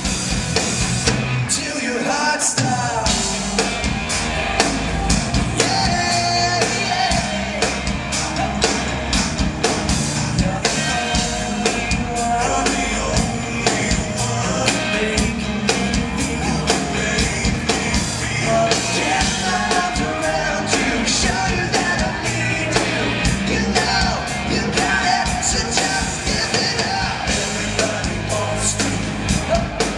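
Live band playing a rock song with a sung lead vocal.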